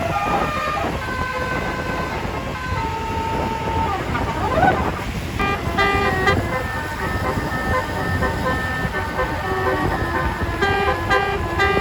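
Basuri multi-tone bus horn playing a melody: long held notes stepping from pitch to pitch, a quick rising-and-falling sweep about halfway through, then faster notes with several tones sounding together. Street noise runs underneath.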